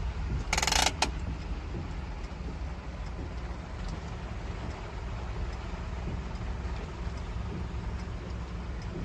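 Steady low rumble of a vehicle's engine and road noise heard from inside the cabin while it drives slowly. About half a second in there is a brief loud buzzing tone, and then a sharp click.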